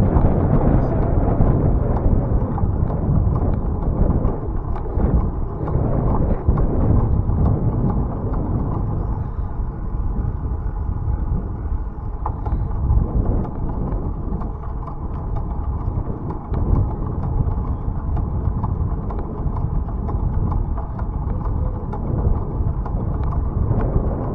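Wind rumbling on the microphone of a moving bicycle, with faint light clicks and rattles.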